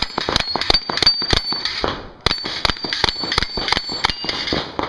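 Hi-Point 995TS 9mm carbine fired in a rapid string, about three to four shots a second, with a brief pause about two seconds in.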